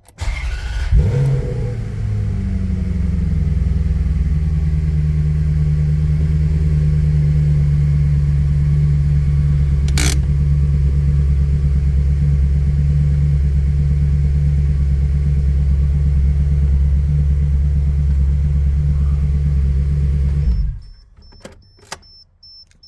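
Engine cranking and catching about a second in, rising briefly, then settling into steady running until it is shut off abruptly near the end. It is an engine that has been hard to start. A single sharp click sounds about halfway through.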